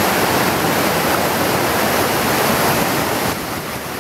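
River rapids rushing over boulders: a steady, loud rush of white water, dropping a little in level shortly before the end.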